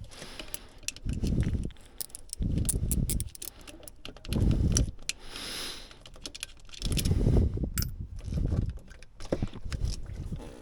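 Ratchet on a 10mm socket clicking in short spells with metallic clinks while the thermostat housing bolts are undone, mixed with low rumbling handling noise in brief bursts.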